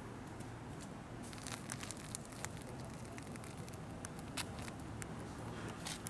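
Faint outdoor background: a steady low hum with many scattered light crackles and clicks at irregular intervals.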